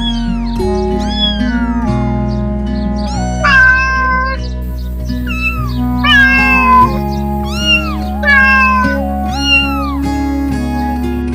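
Background music with held notes, over which a cat meows about nine times in quick succession, each meow short and arching in pitch.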